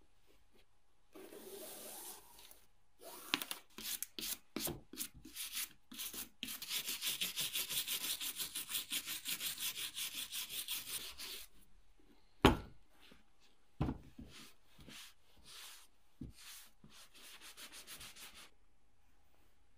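A brush scrubbing dirt and mud off a leather Crispi hunting boot: uneven strokes at first, then a fast, steady back-and-forth scrub of about five strokes a second. Two loud knocks come just past the middle, then quick rubbing strokes of a wet cloth wiping the boot near the end.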